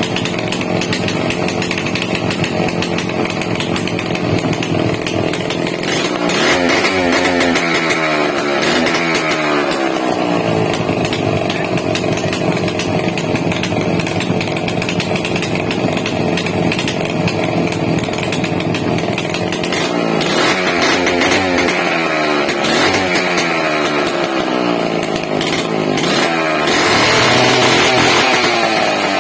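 A power tool motor running continuously, its pitch sagging and climbing back several times, as when the tool is pressed into the work and eased off.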